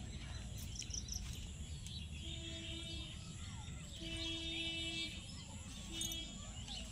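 Outdoor garden ambience: small birds chirping faintly over a steady low rumble. A faint steady hum sounds three times, a little after two, four and six seconds in.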